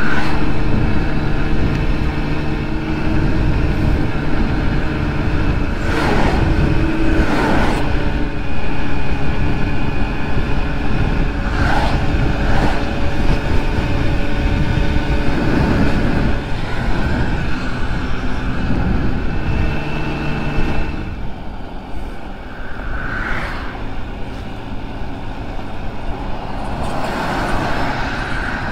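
Honda Ruckus scooter's engine running steadily while riding on the road, its note shifting in pitch a few times, with wind rushing over the microphone.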